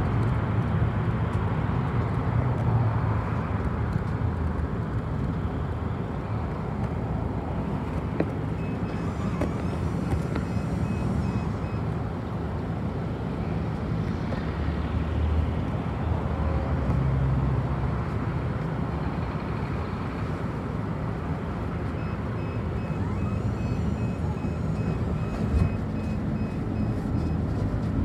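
Road traffic on a wide city street: a steady low rumble of engines and tyres from buses and cars moving past.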